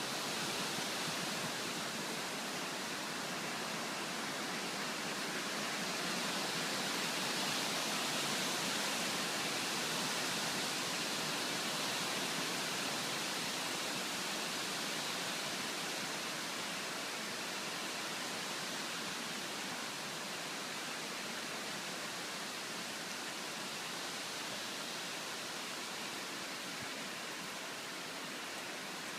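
Heavy typhoon rain pouring down in a steady hiss, swelling a little in the first third before easing slightly.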